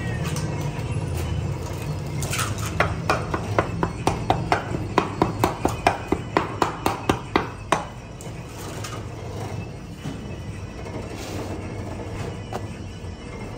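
A utensil clinking against dishware in a quick, regular series of about three strikes a second. It starts about two seconds in and stops a little before eight seconds, over a low steady hum.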